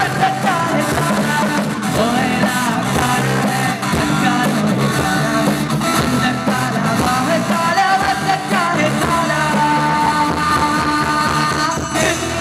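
Live amplified band playing: male vocals sung into handheld microphones over electric guitar and keyboard.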